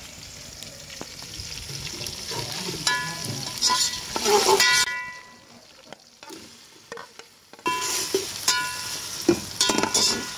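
Chicken sizzling in oil in an aluminium pot, with a metal slotted spoon scraping and clinking against the pot as chopped tomatoes are added and stirred in. Short bursts of ringing scrapes come twice, with a quieter spell between them.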